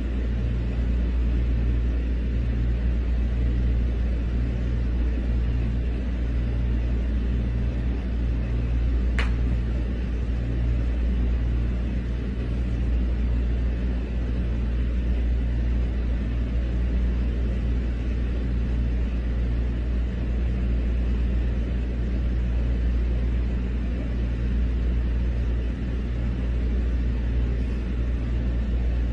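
Steady low rumble, with a single sharp click about nine seconds in.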